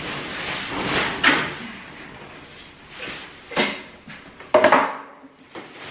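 Cleanup handling noises: plastic garbage bags rustling as they are picked up, with several sharp knocks and clatters, the loudest a little after four and a half seconds in.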